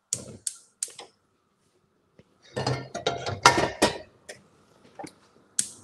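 Metal pots and pans clanking and clinking as they are moved on a gas stovetop: a few sharp knocks, then a louder cluster of ringing clanks in the middle, then more scattered knocks.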